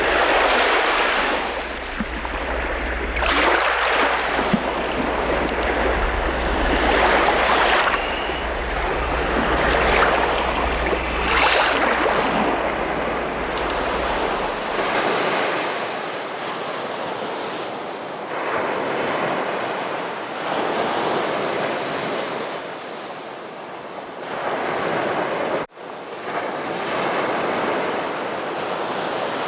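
Sea surf breaking and washing up the shore, surging in repeated swells every few seconds. A low rumble runs under the first half, and there is a very short break in the sound near the end.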